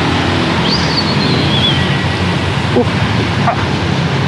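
Steady rushing noise of wind on the microphone and wet pavement while riding an electric bicycle in the rain, with a faint high squeal about a second in.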